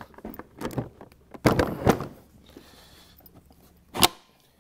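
Hard plastic knocks and clacks of Milwaukee PACKOUT organizer boxes being set down onto a stack, a handful of knocks in the first two seconds and one sharp, loud clack about four seconds in.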